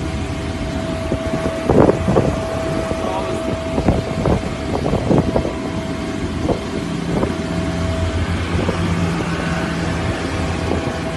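A steady engine drone with a constant whine and a low hum, broken by a few short, louder sounds between about two and five seconds in.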